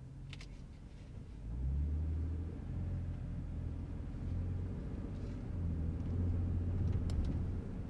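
2022 Toyota Tundra's twin-turbo V6 pulling at low speed, heard from inside the cab as a low, steady rumble that picks up about one and a half seconds in.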